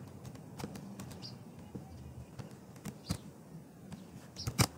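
A few scattered clicks from a computer mouse and keyboard as text is copied and pasted, with a louder pair of clicks in quick succession near the end.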